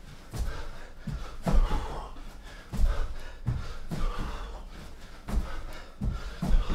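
A man doing burpees on an exercise mat: dull thuds of hands and feet landing about once a second, with hard panting breaths between.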